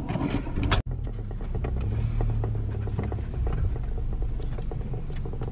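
Steady low rumble of a Nissan car's engine and road noise, heard from inside the cabin while driving.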